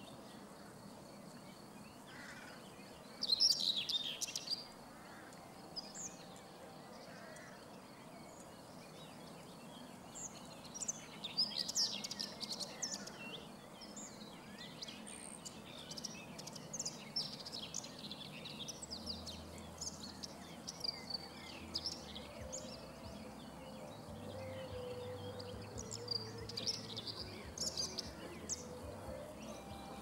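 Common whitethroat singing: short bursts of quick, high warbling notes. The loudest phrase comes about three seconds in and another around eleven to thirteen seconds, with scattered shorter notes between.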